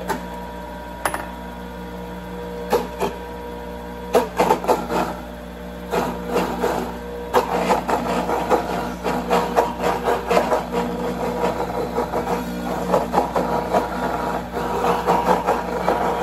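PURE two-stage juicer's grinder running with a steady motor hum while black grapes and cranberries are fed in and ground into mash. Crackling and popping start about four seconds in and grow dense as the fruit is crushed.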